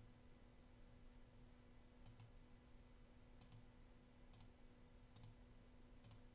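Near silence with about six faint computer clicks, roughly a second apart, as the slide animations are stepped through, over a low steady hum.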